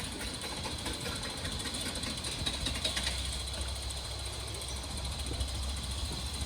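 A steady low engine rumble with a faint high whine, as of a vehicle running.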